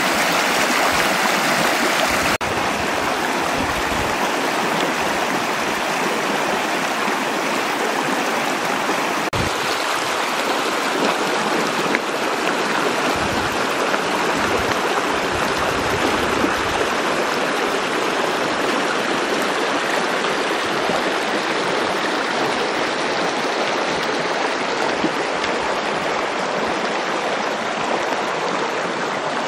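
Fast stream water rushing and churning over rocks: a steady, loud, unbroken noise.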